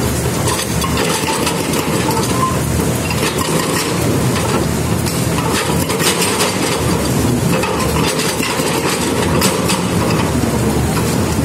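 Hydraulic breaker on a Cat excavator hammering steadily into a concrete wharf slab, a rapid unbroken pounding over the running excavator engine.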